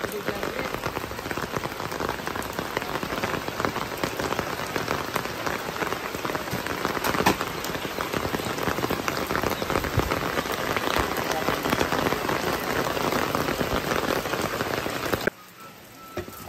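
Steady rain pattering on roofs and a wet yard, a dense patter of drops. About fifteen seconds in, it cuts abruptly to much quieter rain.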